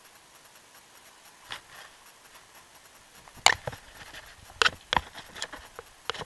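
Several sharp knocks and scuffs over a quiet background: a loud one about three and a half seconds in, a cluster a second later, and one more near the end. This is handling noise from the camera being bumped and moved.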